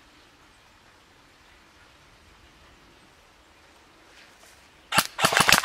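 Quiet woodland background, then about five seconds in a sudden burst of rapid airsoft gunfire, many sharp shots in quick succession.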